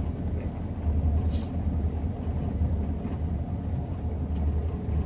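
Steady low rumble of engine and road noise inside the cabin of a Daihatsu manual car cruising in third gear.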